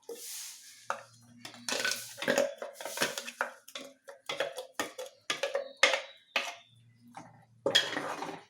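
A spoon knocking, scraping and clinking irregularly against steel kitchen vessels as the ground coconut-and-curd paste is scooped into the pot, with a short metallic ring about six seconds in.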